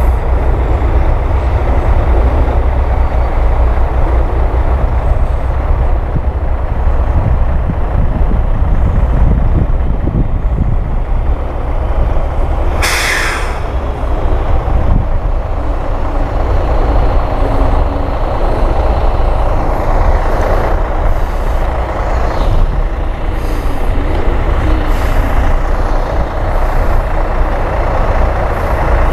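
Heavy loaded dump trucks' diesel engines running with a steady low rumble, and an air brake hissing briefly about halfway through.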